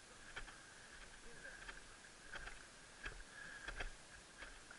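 Faint footsteps on dry, sandy scrub ground, a short crunch about every half to two-thirds of a second, over a faint steady high tone.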